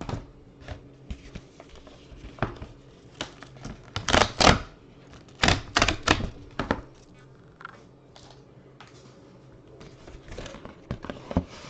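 A paper envelope being handled and opened: irregular rustles and sharp clicks, loudest in two short clusters a little past the middle.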